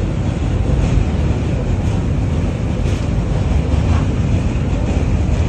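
Train running at speed, heard from inside the car: a steady low rumble of wheels on rails.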